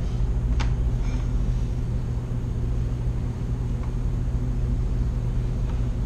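Steady low machinery hum with a constant droning tone. A light click about half a second in comes from handling the multimeter test leads on the removed capacitor.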